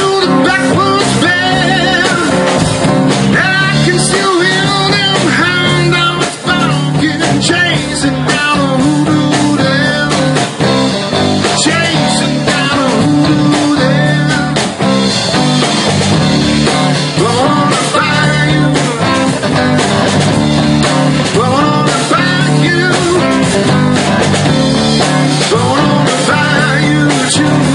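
Live rock band playing: electric guitars over bass, keyboard and drums, loud and continuous, with a melodic line bending up and down in pitch.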